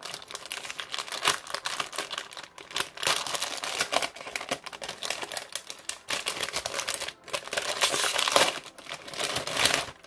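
Gift wrapping crinkling and rustling as a small wrapped present is unwrapped by hand. It makes a continuous, irregular crackle that stops near the end.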